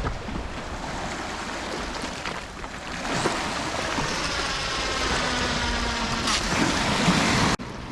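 Steady rushing of wind on the microphone and waves washing on the shore. It cuts off abruptly near the end.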